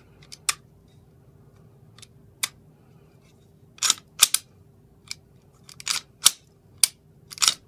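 Glock-pattern 9mm pistol being worked by hand: about a dozen sharp metallic clicks and snaps, some in quick pairs, as the slide is racked and the striker and trigger reset. Among them is the striker snapping forward on its own as the slide closes, which the owner takes for a fault in the new build.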